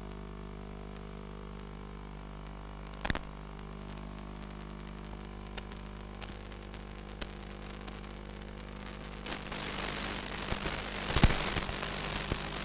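Electrical hum and hiss on the audio of an analog FPV video recording, with scattered sharp clicks. From about nine seconds in it turns to louder crackling static, with a sharp burst of crackle near the end, as the radio link gets noisier with distance.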